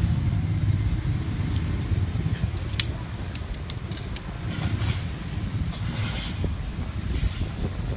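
Steady low rumble, like nearby road traffic, with a cluster of small sharp clicks between about two and a half and four seconds in, then a few soft rustles from handling small tools or cable.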